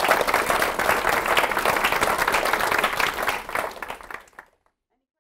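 Audience applauding in a meeting room, a dense patter of many hands clapping that fades out about four and a half seconds in.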